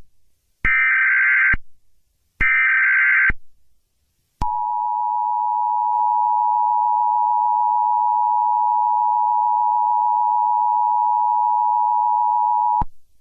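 Emergency Alert System tones: the last two of the SAME header data bursts, each about a second long with short gaps between them, then the EAS two-tone attention signal held steady for about eight seconds before it cuts off sharply. Together they signal that an emergency alert, here a tornado warning, is about to be read.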